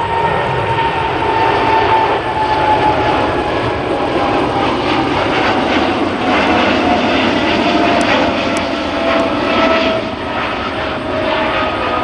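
Boeing 777 airliner's twin jet engines at takeoff power as it climbs out: a loud, steady roar with a whine that slowly falls in pitch as the plane passes and moves away.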